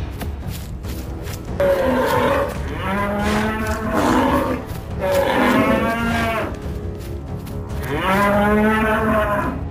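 Cattle mooing: four long, drawn-out moos with short gaps between them, the first about one and a half seconds in.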